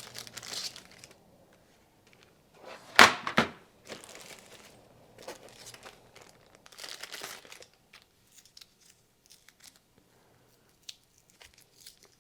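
Handling noises: rustling and small clicks as the light's controls and its remote are handled, with one louder knock about three seconds in.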